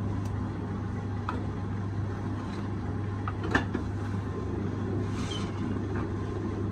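Motor-driven potter's wheel spinning with a steady low hum, with a few light knocks and taps over it, the sharpest about halfway through.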